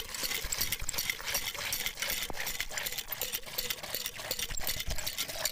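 Water from a hand pump gushing in a thick stream into a plastic bucket and splashing, with repeated knocks through it.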